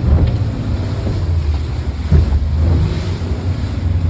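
A boat's motor running as a low rumble, with wind buffeting the microphone.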